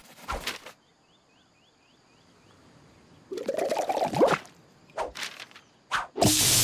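Cartoon sound effects: a faint run of small scratchy ticks, a wavering, wobbling sound about three to four seconds in, and a few short pops. Near the end comes a loud, hissing, crackling electric zap as the hyena lands on the jellyfish.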